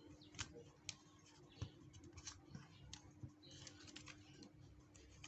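Faint, scattered clicks and scraping from a plastic opening pick worked along the seam of a feature phone's plastic case, prying the case's clips apart. There is a brief stretch of scraping a little past halfway.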